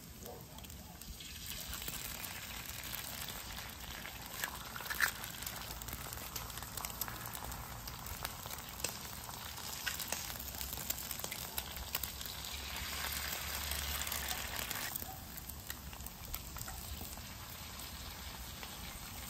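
Eggs frying on a hot Weber flat-top griddle, a steady sizzle that swells for a couple of seconds about two-thirds of the way in as fresh eggs hit the steel. Occasional sharp clicks of eggshells being cracked.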